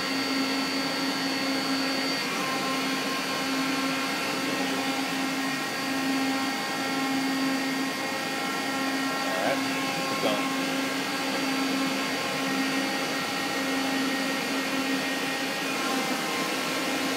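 Mori Seiki CL-153M CNC lathe running: a steady machine hum with several high steady tones over it, the lowest tone pulsing slowly.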